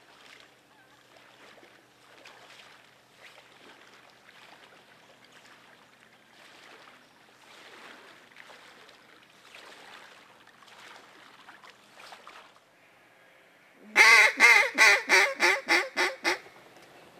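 Mallard duck call blown by a hunter: a loud string of about eight quick quacks near the end, strongest at first and fading over about two and a half seconds. Before it, faint splashing of legs wading through shallow water.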